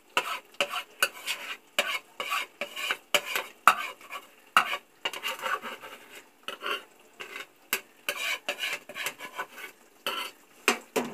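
A metal spoon scraping thick masala paste off a plate into a frying pan, with many irregular clinks and scrapes against the plate and the pan, over a light sizzle from the chicken frying in the pan.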